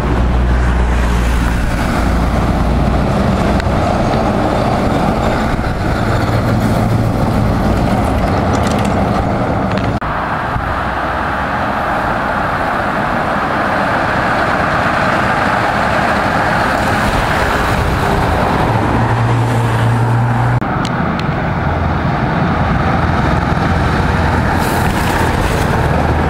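Loud exhaust note of straight-piped Scania V8 trucks driving past, in three clips cut together about ten seconds apart.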